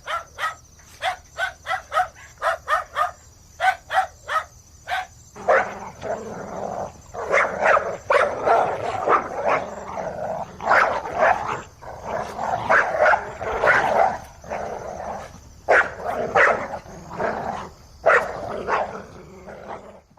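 Several dogs barking. First a quick run of short barks, several a second, then from about five seconds in a dense, overlapping chorus of many dogs barking at once, which cuts off suddenly at the end.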